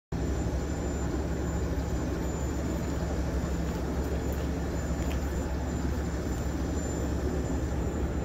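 Fuel tanker truck's diesel engine running with a steady, even low drone.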